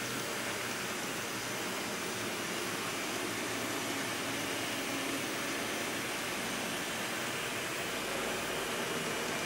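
Model train running along the layout track, a steady even whirring noise of wheels and motor with hiss.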